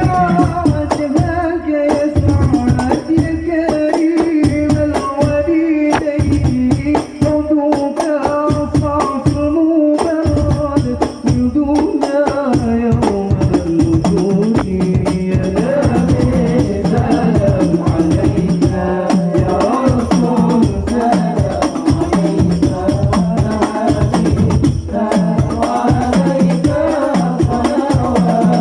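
Sholawat devotional music: a melody carried over fast, steady hand-drum and jingle percussion.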